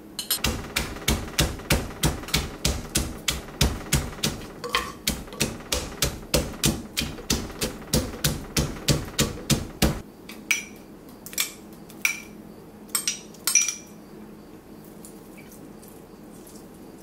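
Wooden pestle pounding garlic and chilies in a clay mortar, about three strokes a second, stopping about ten seconds in. A few lighter, scattered knocks follow.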